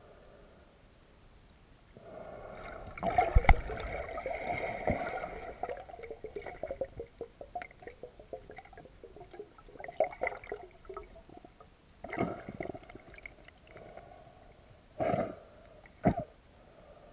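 Underwater sound through a camera's waterproof housing: river water gurgling and crackling, with knocks and bumps. The loudest knocks come about three seconds in, with short loud bursts near the end.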